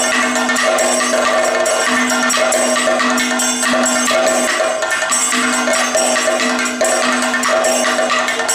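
Kathakali accompaniment: chenda struck with sticks and maddalam beaten by hand in a dense, fast rhythm, with small ilathalam cymbals clashing, over held melodic notes that change every second or two.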